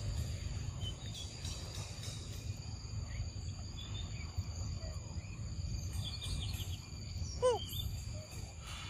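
Outdoor woodland ambience: steady high insect buzzing over a low rumble, with a few faint bird chirps and one short downward-sliding call about seven and a half seconds in.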